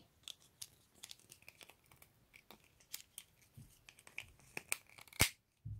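Small plastic toy slide pieces being handled and fitted together, with scattered light clicks and taps and one sharper click about five seconds in.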